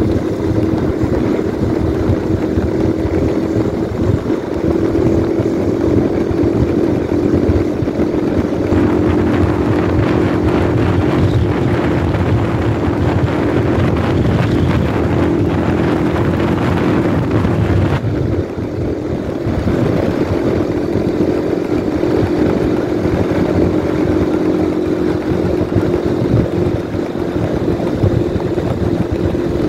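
Motorcycle riding at steady cruising speed: the engine runs with a steady drone under heavy wind rushing over the microphone. The wind noise eases briefly about two-thirds of the way through.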